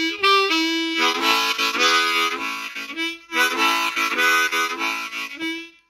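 Hohner harmonica played with tongue blocking in a shuffle rhythm, alternating single notes and chords in an even rhythm. The playing stops shortly before the end.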